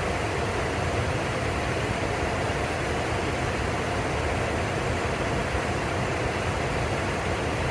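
Steady rushing of whitewater rapids at the Potomac River's Great Falls, an even, unbroken roar of falling and churning water.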